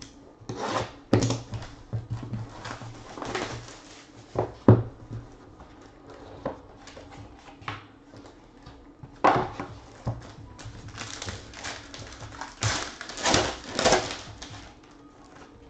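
Hands opening a cardboard card box and handling a plastic-wrapped pack inside: irregular taps and scrapes, then bursts of plastic crinkling from about nine seconds in.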